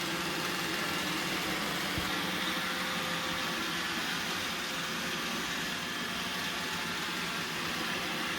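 iRobot Roomba 960 robot vacuum running, a steady whir of its suction motor and brushes while it cleans.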